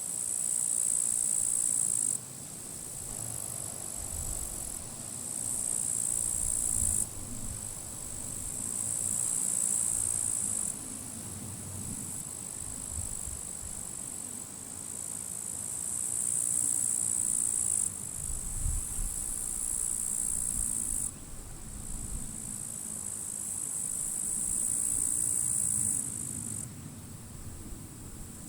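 Grasshoppers stridulating in dry grass: high-pitched buzzing chirrups in bouts of a few seconds each, starting and stopping abruptly, over a low rumble of gusting wind.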